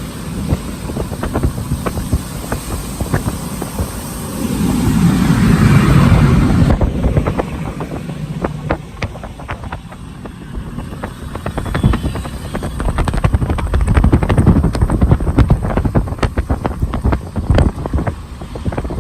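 Rumbling, crackling outdoor noise, of the kind made by wind on the microphone or passing traffic, swelling louder about five seconds in and again near fourteen seconds.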